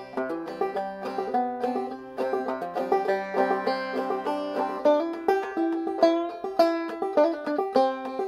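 Five-string banjo played clawhammer style in double C tuning: a steady run of plucked, ringing notes carrying a melody over an even rhythm.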